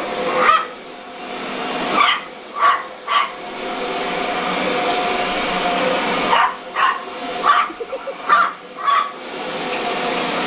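Upright vacuum cleaner running steadily on carpet while a small dog barks at it, a string of short sharp barks in two clusters with a pause of a few seconds in the middle.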